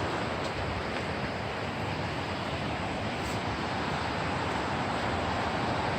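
Steady rushing of a river's current, an even noise with no breaks.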